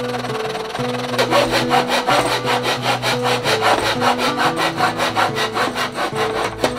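Hand saw cutting a mahogany strip in a mitre block, with quick, even back-and-forth strokes, about five a second, from about a second in.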